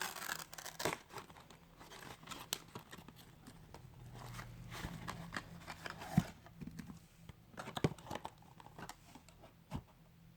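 Foil wrapper of a Kinder Surprise egg being torn and crinkled as it is peeled off, in irregular crackles and rustles.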